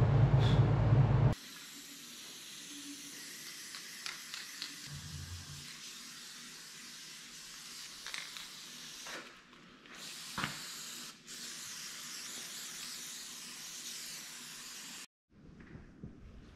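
Wire-feed welder's arc buzzing and crackling, cutting off about a second in. Then an aerosol spray-paint can hissing in long steady sprays, with two short breaks, stopping suddenly near the end.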